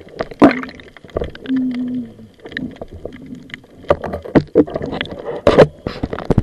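Water sloshing and gurgling with many sharp, irregular knocks, heard through an underwater camera fixed to a speargun as the gun is handled at the surface.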